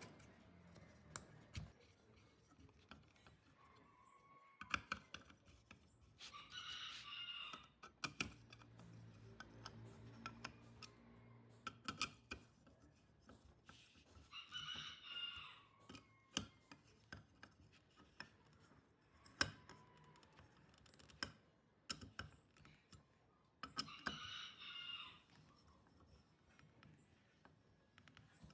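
Scattered sharp clicks and taps of hand work on small parts. A rooster crows in the background three times, each crow about a second long.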